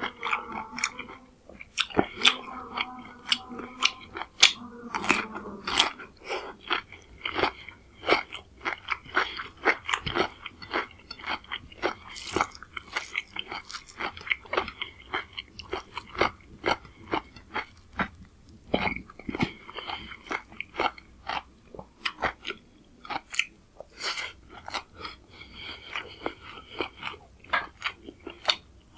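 Close-miked chewing with many sharp, crisp crunches, a person biting and chewing raw cucumber and green chilli along with rice and curry.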